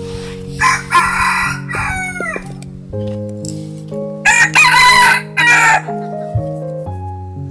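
A rooster crowing twice, loud over soft background music; the first crow trails off falling in pitch.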